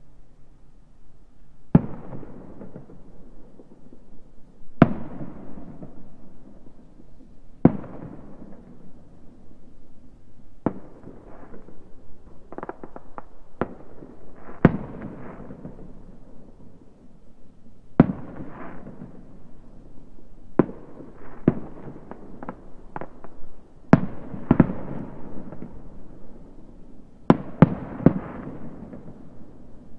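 Distant aerial fireworks shells bursting: a series of sharp bangs, each followed by a rolling, rumbling echo. They come every few seconds and crowd closer together in the last third.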